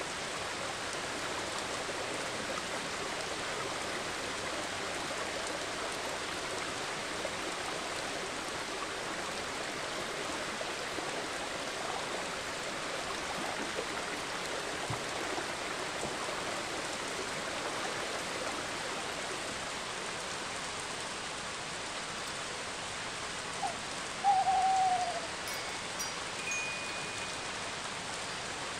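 Steady rain, with a single short, falling owl hoot about three-quarters of the way through, the loudest sound in it.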